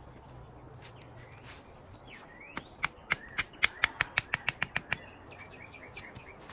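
A bird calling: a couple of rising whistled notes, then a run of about a dozen sharp clicking notes that speeds up and stops, followed by a short string of quieter chirps.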